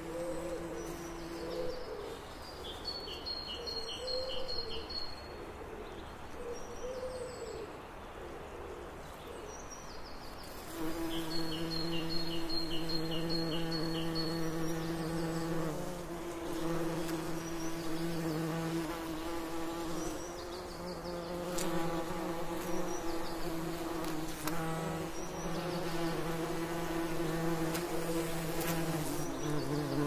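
Bees buzzing in a steady drone that grows louder about eleven seconds in. Birds sing short trilled phrases over it, twice.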